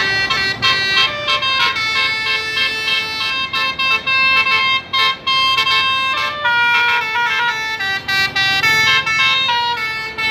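A bus's multi-tone "telolet" (Basuri) musical air horn playing a tune: chords of held notes that change pitch in quick steps.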